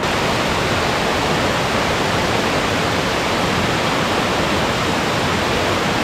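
Steady rushing of monsoon floodwater pouring over a small concrete check dam (weir) and tumbling down over rocks.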